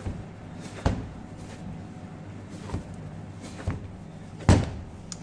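Hands kneading a heavy, dense corn-and-potato bread dough on a stainless steel worktop: a few dull thumps as the dough is pressed and knocked down onto the metal, the loudest about four and a half seconds in.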